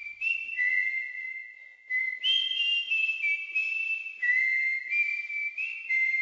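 Whistled melody in the background song: a run of held high notes stepping between a few pitches, each note with a short sharp attack.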